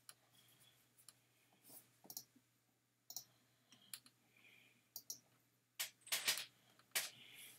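Sharp clicks from computer input while answering an on-screen quiz, coming irregularly about once a second, with a louder run of clicks about six seconds in.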